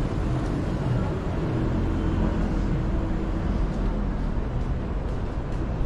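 Steady road traffic on a busy city avenue: a continuous low rumble of passing vehicles.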